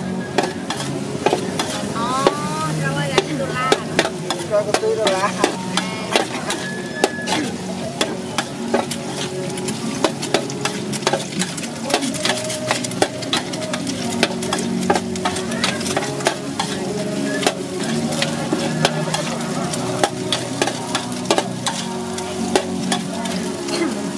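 Noodles and vegetables being stir-fried on a wide, shallow metal pan. A metal spatula scrapes and clacks against the pan over and over, over a steady sizzle.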